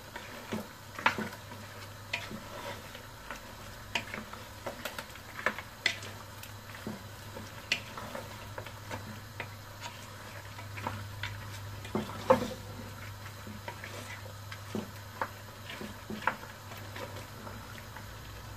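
A spoon stirring mutton pieces and masala in an aluminium pressure cooker: irregular clinks and scrapes of the spoon against the pot's metal, roughly once a second, with a light sizzle from the frying masala.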